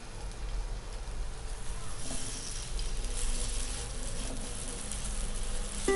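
Shredded-vegetable pancake batter sizzling in hot oil on a nonstick tava. The sizzle grows louder about two seconds in, as a fresh spoonful of batter is spread into the pan.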